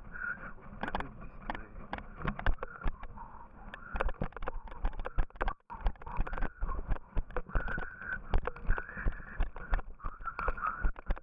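Yooner sled sliding fast down a ski slope: the hiss of its ski on the snow, with frequent irregular knocks and rattles as it jolts over bumps. The sound briefly drops out about five and a half seconds in.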